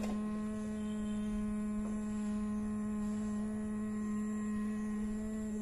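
A steady, unchanging electrical hum.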